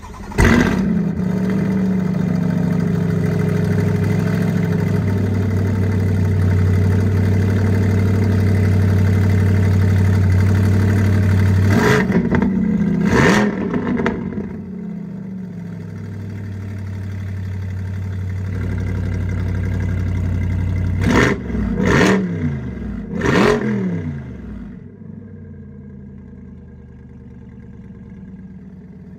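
Chevrolet C8 Corvette's 6.2-litre V8 through a SOUL valved exhaust with sport catalytic converters, starting up and running at a steady high idle. It then drops to a lower idle, broken by two sharp throttle blips and later three more. Near the end it settles to a much quieter idle.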